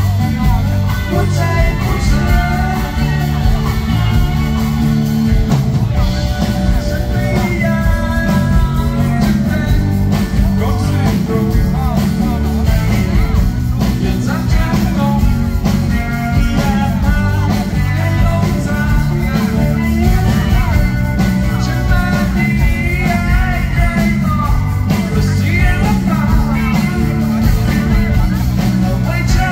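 Live rock band through a PA, with strong bass: a man singing over acoustic guitar, bass and drums.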